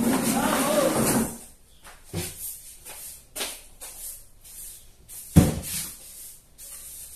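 Straw broom sweeping a concrete floor in short strokes, with knocks from a white plastic chair being moved; the loudest knock comes about five seconds in.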